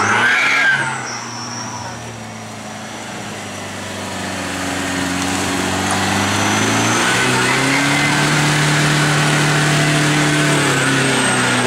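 Toyota Hilux pickup's engine running under load as the truck works in deep mud, its pitch rising about five seconds in and then holding steady at higher revs.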